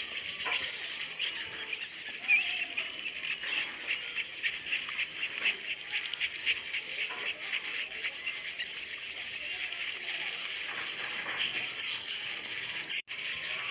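Recorded swiftlet roosting calls: a dense, continuous twittering of high wavy chirps over a rapid clicking chatter, with a brief dropout near the end. This is the 'suara inap' lure call played in swiftlet houses to draw the birds in to roost.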